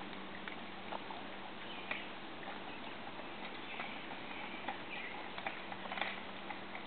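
Faint outdoor ambience: a steady hiss with scattered light clicks and a few short, high chirps.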